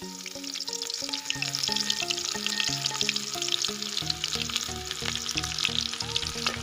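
Hot cooking oil sizzling in a hammered steel wok as food fries, with many fine crackles, under a background music melody.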